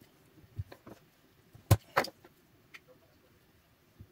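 A few short, sharp metallic clicks and snaps as a small screwdriver pries spot-welded nickel strips off the battery pack's lithium-ion cells. The two loudest come close together a little under two seconds in.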